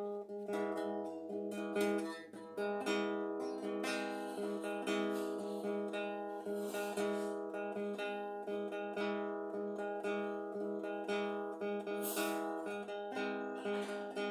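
Solo acoustic guitar playing a song's intro, plucked chords repeating over a steady low note.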